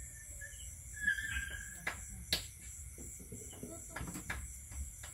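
Crickets chirring steadily in the night, with several sharp clicks and taps standing out, the loudest about two seconds in.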